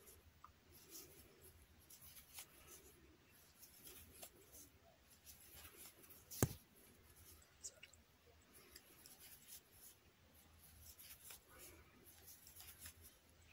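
Near silence with faint rustling and light scratching of yarn and a crochet hook being worked, and one sharp click about six and a half seconds in.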